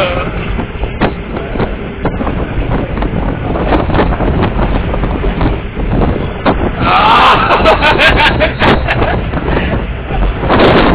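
Ride in the back of an Indonesian army truck on a rough, damaged dirt road: a steady drone of engine and road noise with frequent knocks and rattles as the body jolts, and wind on the microphone. It grows louder from about seven seconds in.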